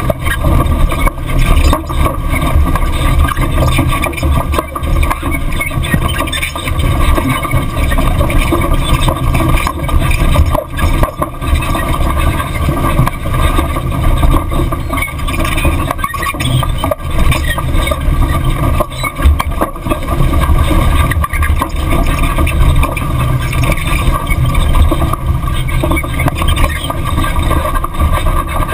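2011 long-travel Chevrolet Silverado driving fast on a dirt road, heard at a camera under the front end: loud, steady wind buffeting and tyre rumble on dirt, with frequent knocks and rattles from the suspension and gravel.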